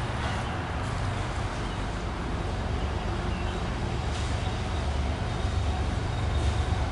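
Steady low rumble of a vehicle, growing a little louder near the end.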